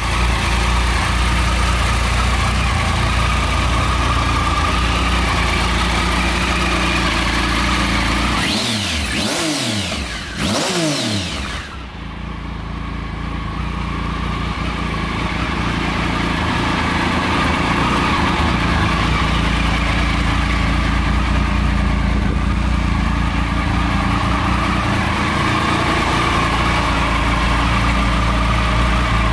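Triumph Sprint ST 1050's three-cylinder engine idling steadily, blipped twice around the middle so the pitch rises and falls, then settling back to idle.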